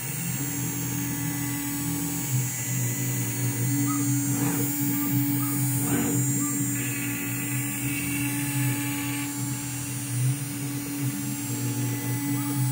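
DIY CNC router cutting a pocket in a board: the spindle and bit run with a steady hum and high whine while the stepper-driven gantry moves the cut along. A higher tone joins for about two seconds around the middle.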